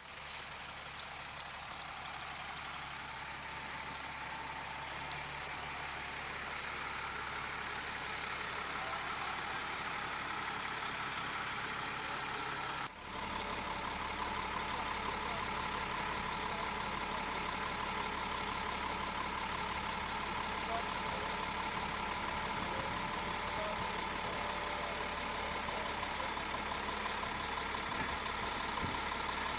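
A vehicle engine running steadily, with a brief drop in sound about 13 seconds in.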